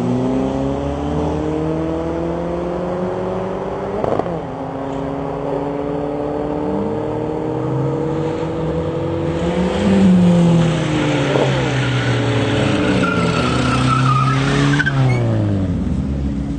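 Two drag-racing cars' engines revving at the start line, then launching and accelerating hard down the quarter-mile strip. Several engine notes climb in pitch, with the loudest surge about ten seconds in, and the sound falls away sharply near the end.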